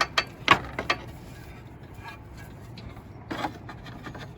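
Roofing slate being handled and set into slate hooks: a few sharp clacks in the first second, then a short scrape about three seconds in.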